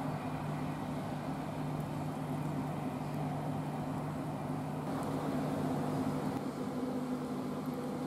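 Diesel train engine humming steadily, a low even drone that holds the same pitch throughout.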